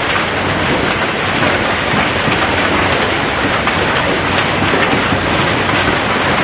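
Heavy hail falling in strong wind: a loud, steady, dense clatter of hailstones striking the ground and bushes.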